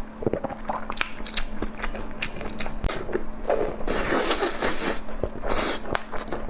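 Close-up eating sounds: biting and chewing with many short wet clicks and smacks, and a longer stretch of noisy crunching or crackling about four seconds in. A steady low hum runs underneath.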